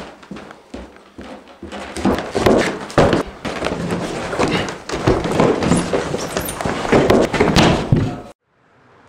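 A loud jumble of thuds, knocks and rustling from bodies grappling close to the microphone, starting after a few quiet clicks and cutting off abruptly near the end.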